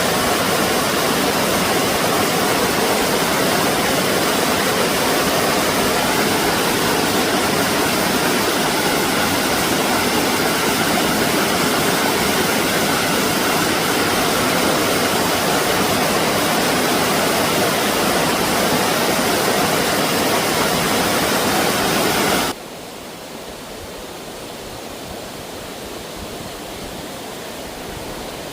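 Rushing stream water, a steady loud hiss. About 22 seconds in it drops suddenly to a quieter rush.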